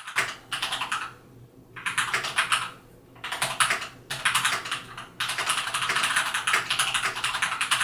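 Fast typing on a MACHENIKE K600G mechanical keyboard with pre-lubed brown switches: dense runs of keystroke clicks, broken by a few short pauses, a sound the typist finds a bit muted.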